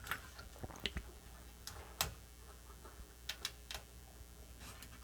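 Faint, irregular clicks and taps of a PLA chip being worked in its socket on a Commodore 64 motherboard, about seven in all, the loudest about two seconds in.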